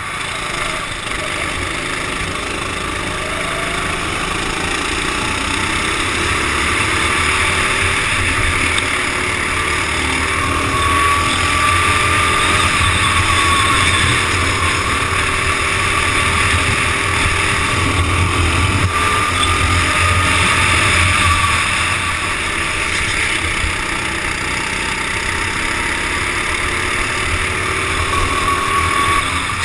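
Go-kart engine running at racing speed, its pitch slowly rising and falling as the kart speeds up and slows through the corners. Heard from a helmet-mounted camera, with a steady rush of wind over the microphone.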